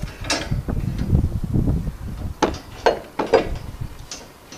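Scattered sharp metal clinks and knocks, about five separate strikes, from a hand tool working on a metal bracket being fitted to the boat's hull for the bowsprit support pipe.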